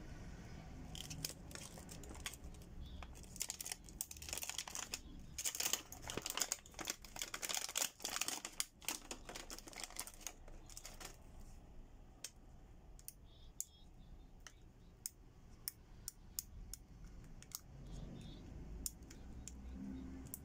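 Clear plastic packaging crinkling and rustling as a USB hub is pulled out of its bag, loudest in the first half, followed by a scattered series of short sharp clicks as the hub is handled.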